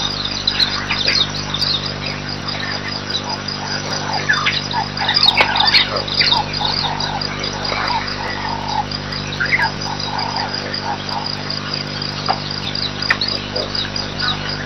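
Bush ambience: insects chirping in a fast, even pulse, with scattered bird calls over it and a steady low hum underneath.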